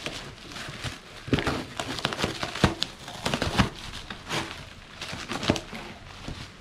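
Plastic wrapping crinkling and cardboard rustling as a wrapped box is cut open with a utility knife and unwrapped: irregular crackles and sharp clicks, busiest in the first half.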